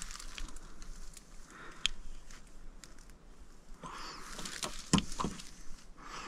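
A long thin metal rod probing through a small drilled hole in a gun safe door: faint, scattered clicks and light scrapes, with a few sharper ticks close together past the middle.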